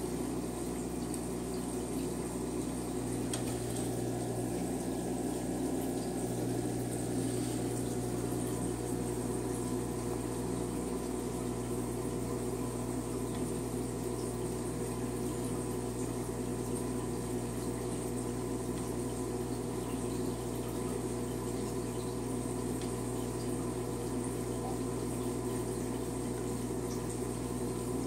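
Aquarium sponge filter bubbling steadily, water trickling and splashing, with a steady low hum underneath.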